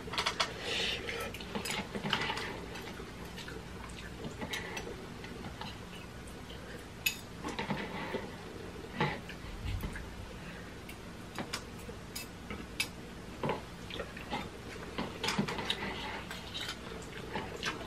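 Metal chopsticks and spoons clicking and scraping against paper instant-noodle cups in light, irregular taps, with eating noises from noodles being taken into the mouth.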